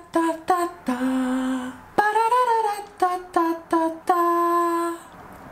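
A man singing a short, high tune in two matching phrases, each a run of short notes ending on a held note.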